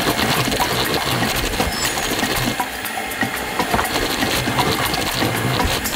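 Electric hand mixer running at its highest speed, its beaters whipping stiff marshmallow cream of egg white, sugar syrup and powdered sugar in a tall plastic beaker. A steady motor sound with a rapid, rattling run of clicks.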